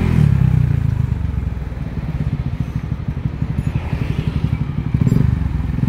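Yamaha Jupiter MX single-cylinder four-stroke motorcycle engine running through its stock muffler with the baffles hollowed out and a stainless pipe fitted: it revs briefly just after the start, settles to a pulsing idle, and revs again near the end.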